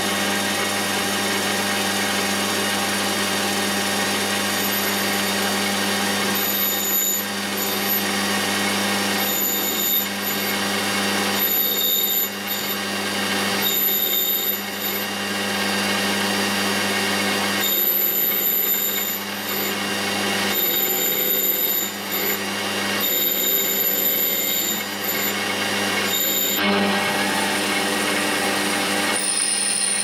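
Metal lathe running steadily with its spindle motor humming while the tool cuts the spinning workpiece, a high thin whine from the cut coming and going in stretches of a second or two.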